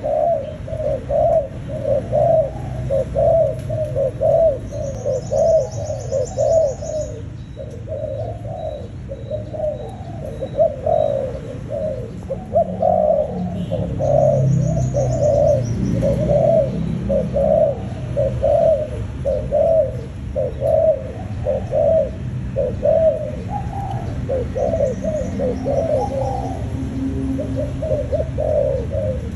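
Spotted doves cooing, a steady run of short low coos a little more than one a second. Brief high chirps come in twice.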